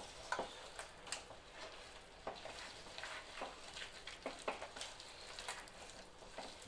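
Hands kneading soft, sticky yeast dough made with milk, egg and oil: faint, irregular sticky squelches and light taps.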